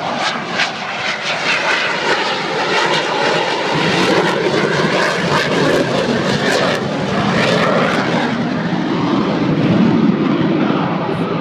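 F/A-18 fighter jet flying past low overhead, its twin jet engines making a loud, steady rush that deepens to a lower rumble in the last few seconds as the jet draws away.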